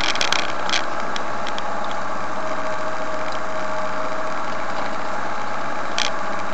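Motorhome engine running with road noise, heard from inside the cab while driving down a steep hill road; steady throughout, with a few light clicks in the first second and one sharp click about six seconds in.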